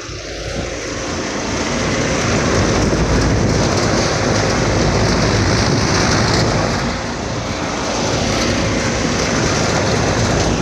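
Large commercial air-conditioning condensing unit running up close: a steady rush of air from the condenser fans over the hum of the compressor. It grows louder over the first two seconds and dips briefly about seven seconds in.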